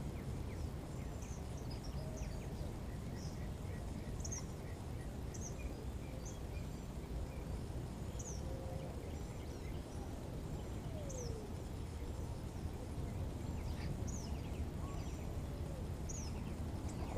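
Birds calling: many short, high, falling chirps scattered throughout, over a steady low outdoor rumble.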